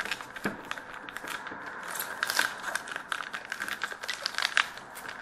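The wrapper of a hockey card pack being torn open and crinkled by hand, giving an irregular run of sharp crackles and rustles, a few louder ones a little past two seconds and near four and a half seconds.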